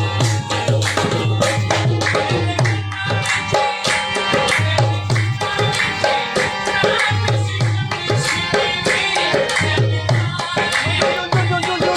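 Background music: a song with a heavy tabla and drum beat running throughout.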